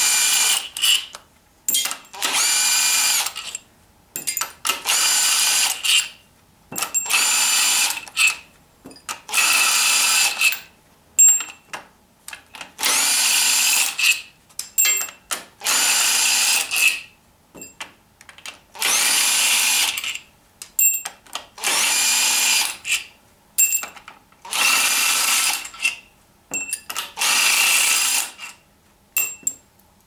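Small cordless impact gun spinning out a BMW N54's bedplate bolts, which were already broken loose with a breaker bar. It runs in about eleven short bursts of a second or so each, one per bolt, with pauses and small clicks of the socket and bolts between them.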